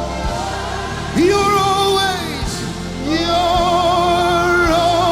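Live gospel worship music: sustained keyboard chords under a lead melody that holds two long notes with vibrato, the second about two seconds long.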